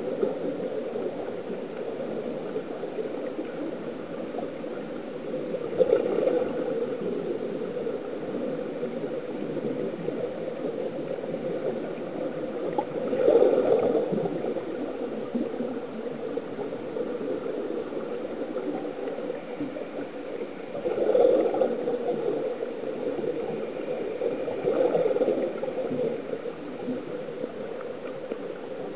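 Muffled underwater rush and gurgle picked up by a submerged camera, with louder bursts of bubbling about every four to eight seconds, typical of air bubbles from the sea-walking helmets and breathing gear.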